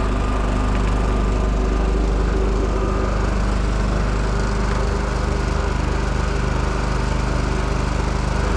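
WEN 56477i 4800-watt inverter generator running steadily in its normal mode, not eco mode.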